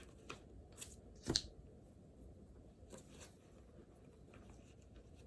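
Small handling noises at a study desk: a few short clicks and rustles of pen and paper, the loudest about a second and a half in, over faint room hiss.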